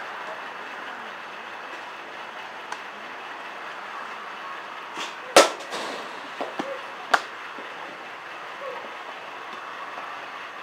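A softball bat hitting a ball once, a sharp impact about five seconds in, followed by a few lighter knocks over the next two seconds. A steady background hiss underneath.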